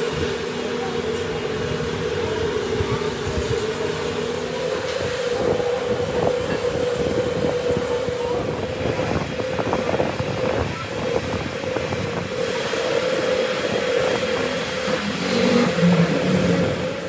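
Steady hum of running workshop machinery, with irregular scraping and rubbing as filler putty is spread and smoothed over the steel rim by hand.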